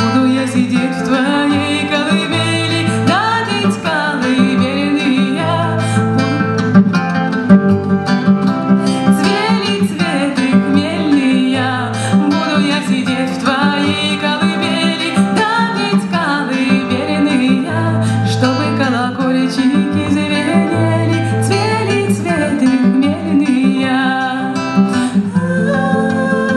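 A woman singing a gentle lullaby-style song, accompanying herself on a strummed acoustic guitar.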